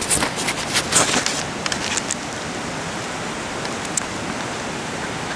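Steady wind noise across the microphone outdoors, with a few short rustles and clicks in the first two seconds and a couple more near the four-second mark.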